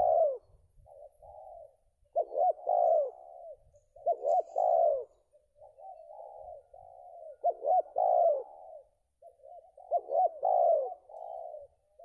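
Spotted dove (tekukur) cooing: phrases of several rounded coo notes, each about a second long, repeated every two to three seconds with softer cooing between them. The bird is a decoy set out to call in wild doves.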